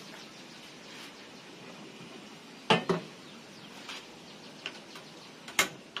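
A few sharp metallic clinks and knocks from a metal kettle being handled on a gas stove: two close together about three seconds in, lighter taps after, and another sharp one near the end.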